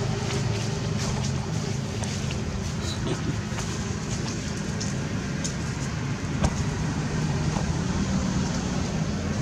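A steady low engine hum, with scattered faint clicks and one sharper click a little past the middle.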